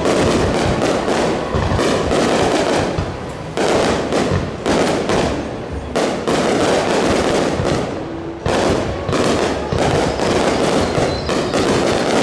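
Fireworks display: a dense, continuous barrage of overlapping bursts and crackles, with a few short lulls.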